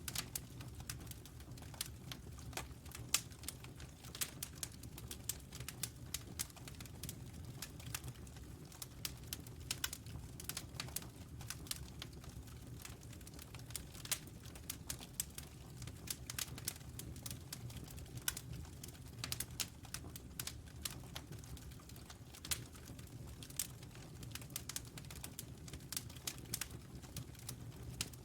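Wood fire crackling: irregular sharp pops and snaps, several a second, over a steady low rumble.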